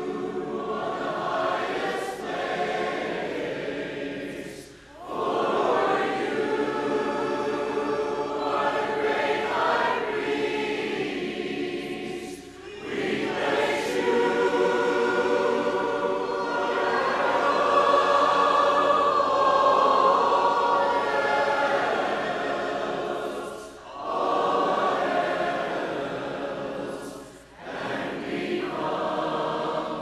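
A church congregation singing a hymn together, phrase by phrase, with short breaks between the lines.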